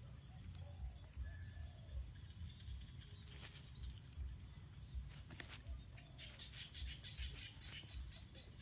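Faint short whimpers from a puppy, with scattered clicks and a constant low rumble.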